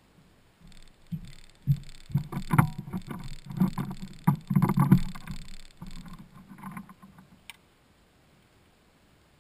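Irregular knocks and thumps on the deck of a fiberglass bass boat for several seconds, as a landed bass is handled and let go over the side.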